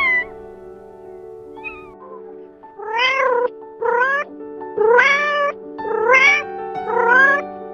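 Domestic cat meowing: a short falling meow at the start, then five loud meows about a second apart, each rising in pitch, over steady background music.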